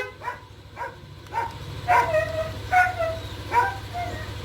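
A dog barking, about six short barks in a row, over a low steady hum.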